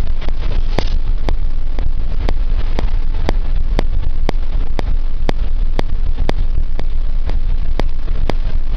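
A moving bus's engine and road noise make a steady, heavy, deep rumble with a haze of wind and tyre noise. A sharp tick recurs about twice a second.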